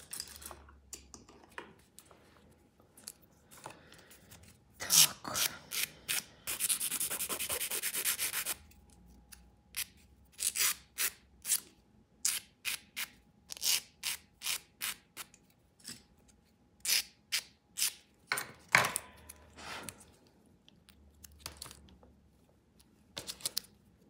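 A nail file rubbing over a practice nail tip in short scraping strokes, two or three a second, with about two seconds of fast continuous filing some seven seconds in.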